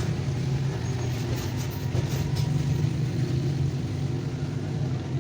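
A steady low machine hum, even in level throughout, with a few faint light ticks about a second or two in.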